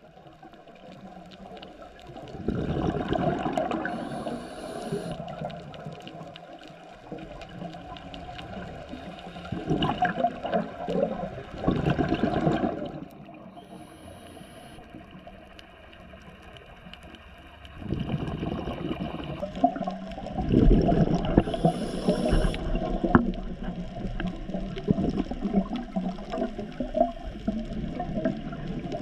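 Underwater recording of a scuba diver's exhaled bubbles gurgling in long bursts, with quieter stretches of muffled underwater hiss between them.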